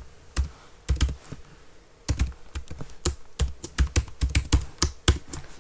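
Typing on a computer keyboard: a few scattered keystrokes, a pause of about a second, then a fast run of keystrokes.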